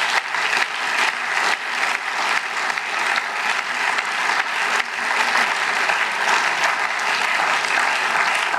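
Sustained applause: many parliament members clapping at a steady level.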